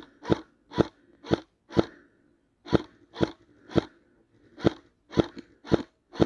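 Footsteps crunching through dry leaf litter and twigs on a woodland floor, about two steps a second in short runs with brief pauses.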